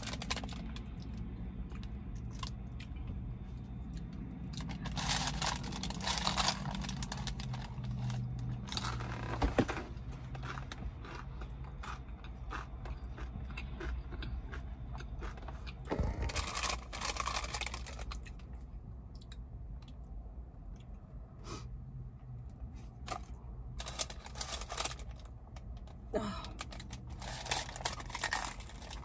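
Close-up eating sounds: a paper burger wrapper crinkling and a person biting and chewing a sourdough jack burger, in several short spells of crackling, over a low steady hum.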